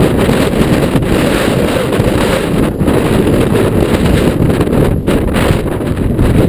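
Strong wind, gusting over 30 mph, buffeting the microphone: a loud, steady rumble heaviest in the low end.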